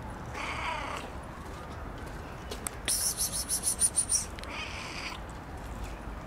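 A cat meowing twice, with a loud, rapid high-pitched trill of about eight pulses in between.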